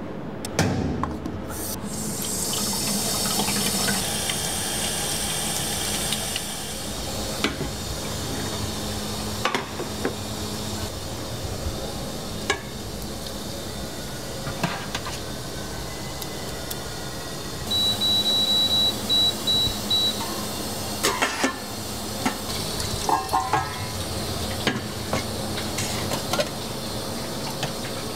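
Metal ladle scraping and clinking against a stainless steel pot as sauce is portioned, over a steady hiss. A short run of high electronic beeps about 18 seconds in.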